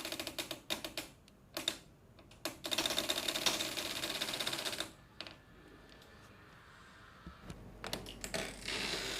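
A door rattling, a fast stream of clicks in fits and starts: a short burst at the start, a couple of single knocks, a long dense rattle that stops suddenly, then a quieter gap before the clicking picks up again near the end.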